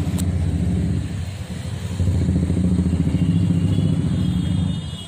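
A small vehicle engine running steadily with a low, rapid pulsing beat, dipping briefly in level between about one and two seconds.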